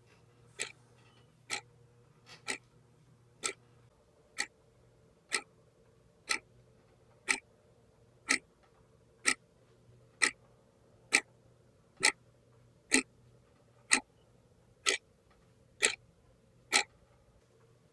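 Wall clock ticking once a second, each tick a sharp click, the ticks growing a little louder towards the end.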